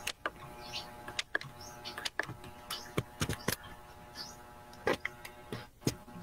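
Computer mouse clicking at uneven intervals, several as quick double clicks, over a steady electrical hum. A few faint high chirps come through between the clicks.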